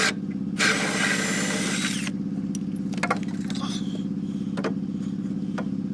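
A power tool runs in one burst of about a second and a half near the start, over a steady low machine hum; a few light clicks follow.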